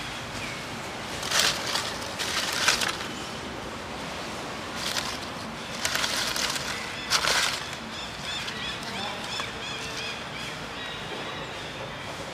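Dry fallen leaves crackling and rustling in several short bursts as a macaque rummages through them.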